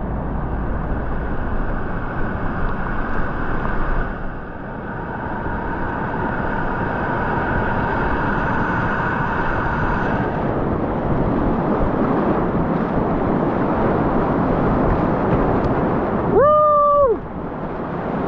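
Whitewater rapid rushing and splashing around a kayak as it rides through a wave train, the noise growing fuller about halfway through. Near the end comes a short rising-and-falling whoop.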